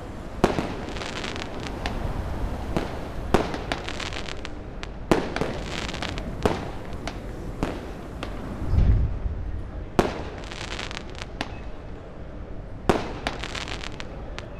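Fireworks going off: sharp bangs every second or two, several followed by a spray of crackling, and a deep boom about nine seconds in.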